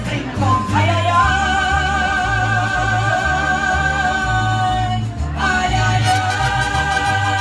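Live mariachi music: a woman and a man singing long held notes with vibrato over strummed guitars and a pulsing guitarrón bass. The held note breaks off about five seconds in and a new one begins.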